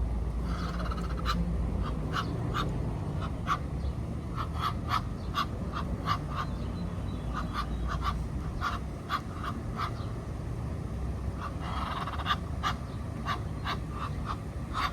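Ducks quacking in many short, irregular calls, sometimes several a second, with a brief flurry near the start and another about twelve seconds in, over a steady low rumble.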